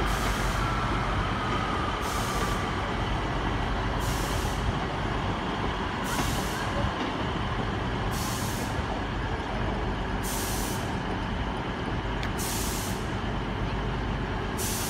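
Diesel multiple-unit trains running at a station platform, a steady low engine rumble, with a short hiss of air that recurs about every two seconds.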